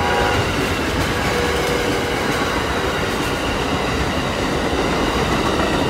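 Amtrak Silver Star passenger cars rolling past over a grade crossing: a steady rumble and rush of wheels on rail. The last of the locomotive's horn cuts off right at the start.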